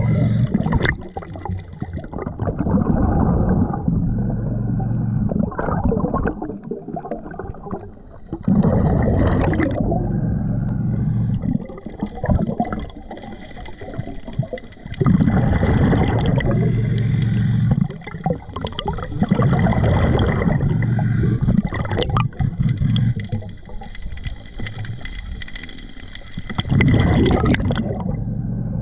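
Scuba diver breathing through a regulator fed by a Blu3 Nomad surface-air system, heard underwater. Loud rushes of exhaled bubbles every few seconds, with quieter inhalations between.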